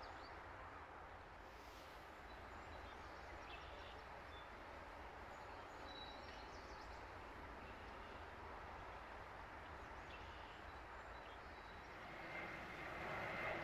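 Faint, steady rush of river water with a few scattered high bird chirps and a low rumble underneath. Near the end the noise swells and a faint steady tone rises over it.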